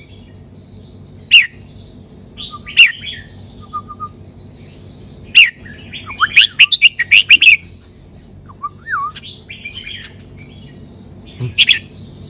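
Caged red-whiskered bulbul singing short, bright whistled phrases, with a quick run of rapid notes in the middle.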